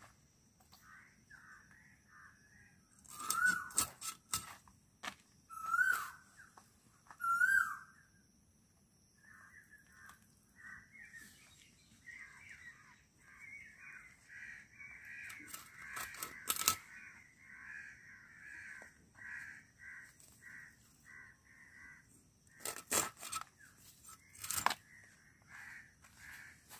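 Birds calling: three loud, short whistled calls about two seconds apart, then a long run of quick repeated chirps, over a steady high insect drone. Sharp crackles come in now and then, loudest near the end, as feathers are pulled from a slaughtered chicken by hand.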